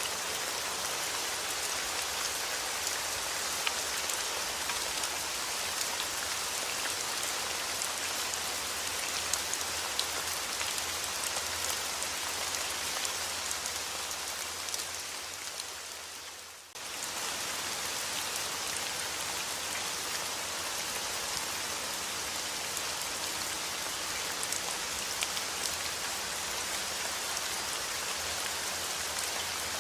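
Steady rain falling on a surface, a dense even hiss with scattered individual drop ticks. Just past the middle it fades down over a couple of seconds, then comes straight back at full strength.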